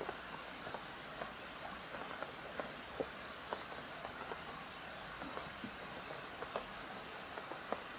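Steady light rain hissing, with scattered drops tapping irregularly close by, a few of them louder.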